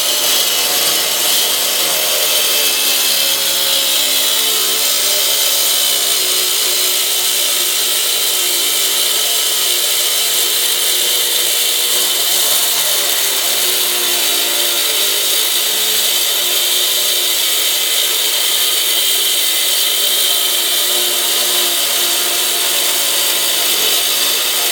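Cordless 4.5-inch angle grinder with a diamond cutting wheel grinding through a steel mower spindle shaft. It cuts continuously with a loud hiss of metal on the wheel, and the motor's pitch wavers up and down as the wheel bites.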